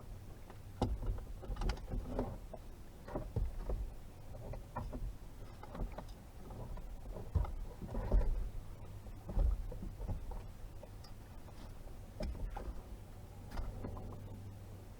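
Irregular knocks and clunks of gear being handled, a dozen or so spread unevenly, over a steady low hum.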